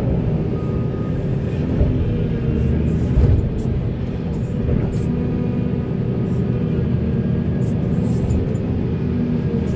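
Volvo 480 excavator's diesel engine running steadily as it digs, with scattered clanks and scrapes and one heavier thump about three seconds in.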